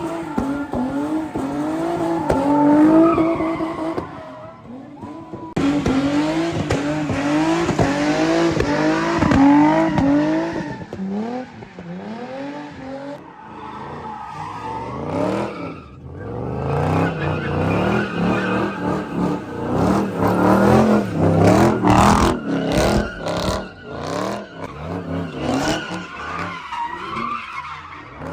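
Car engine revved hard over and over, its pitch rising and falling again and again, with tyres squealing and skidding as in burnouts or donuts. It drops off briefly about four seconds in, then picks up again.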